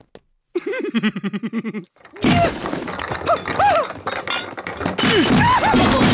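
Soundtrack effects: a short, rapid pulsing gurgle, then a longer stretch of clinking and breaking glass bottles from about two seconds in, with a character's wordless groans mixed in.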